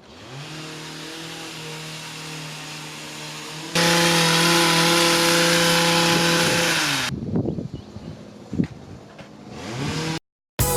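Small gas engine of power landscaping equipment running at a steady high speed. It jumps louder about a third of the way in, winds down a little past halfway, then speeds up again near the end.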